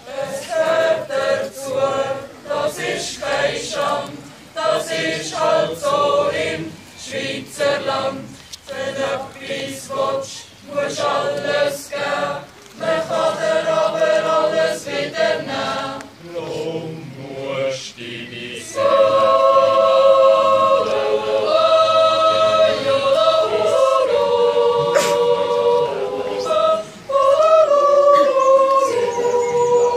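A group of young voices singing a cappella in harmony. For the first part they sing in short syllables; from about nineteen seconds in they get louder and hold long chords.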